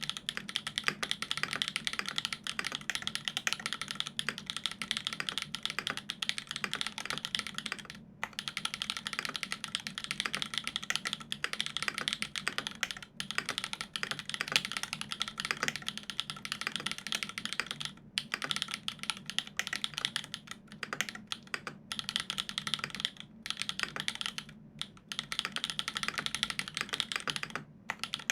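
Continuous fast typing on a 65% custom mechanical keyboard with lubed Everglide Dark Jade Black linear switches on an aluminium plate and GMK keycaps, a dense run of key clacks with a few brief pauses.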